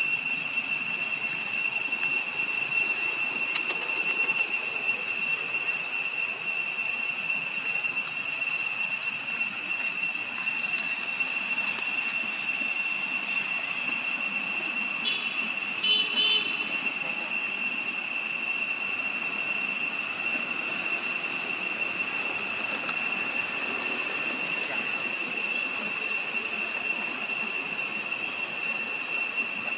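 Steady high-pitched insect drone over a hiss, unchanging throughout, with a brief cluster of short chirps about halfway through.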